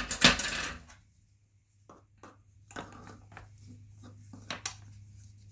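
Metal parts and tools being handled on a workbench: a loud clatter at the start, then scattered light clicks and knocks, over a steady low hum.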